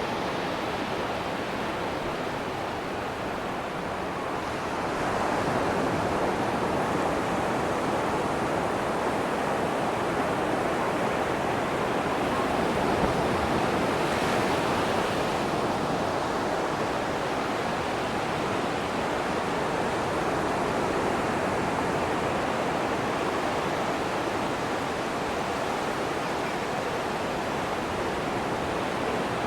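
Ocean surf breaking and washing on a sandy beach: a steady rushing wash that swells about five seconds in and slowly eases back.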